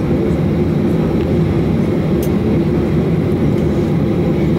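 Inside the cabin of a Boeing 737-800 taxiing after landing: a steady, even rumble from its CFM56-7B engines at taxi power, with a steady low hum running through it. A faint click about two seconds in.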